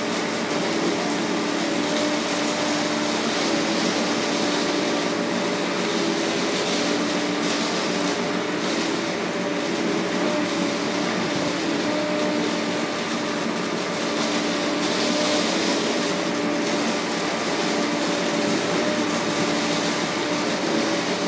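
Steady city street traffic noise, with a constant machine hum running through it.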